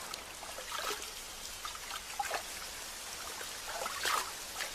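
Light rain falling, a steady hiss with scattered drips and trickling water.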